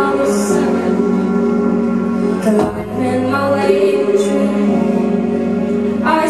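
A woman singing live into a microphone, holding long sustained notes over a steady low sustained backing.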